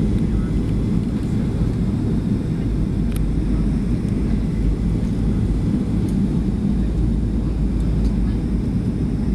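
Steady low cabin rumble inside a Boeing 737 descending to land: the drone of its jet engines and the rush of air over the fuselage, with no change in pitch or level.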